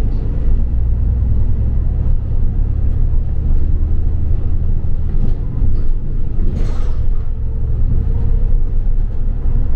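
London double-decker bus running, heard from on board: a steady low rumble of engine and road noise, with a brief hiss about six and a half seconds in.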